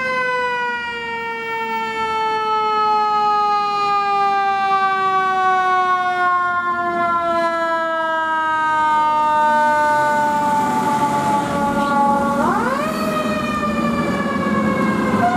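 Fire truck's mechanical siren wound up, then slowly falling in pitch for about twelve seconds before it is wound up again near the end, over the low rumble of the rig pulling out.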